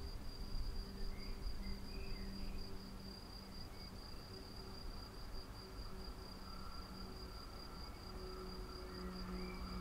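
Crickets chirring in a steady high-pitched trill, with a few short chirps and a faint low hum that grows louder near the end.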